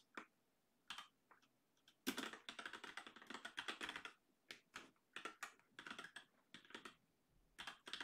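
Typing on a computer keyboard: a few scattered key clicks, then from about two seconds in quick runs of keystrokes broken by short pauses.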